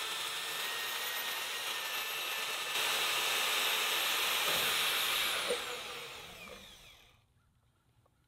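Vevor portable band saw, used handheld, running with its blade cutting through a thick-walled steel pipe: a steady whine over the rasp of the blade, growing louder a little under three seconds in. About five seconds in the trigger is let go and the whine falls in pitch as the motor spins down, leaving a few faint clicks.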